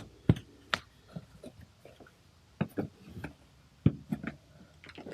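Scattered light knocks and clicks of grill accessories and packaging being handled while unboxing, about a dozen separate strikes with short pauses between.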